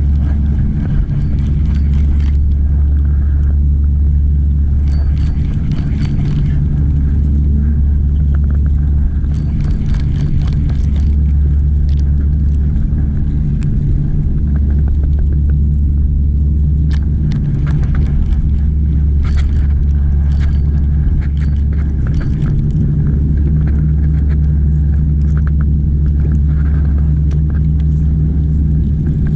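Boat engine running steadily, a loud low drone with a few scattered knocks and clicks over it.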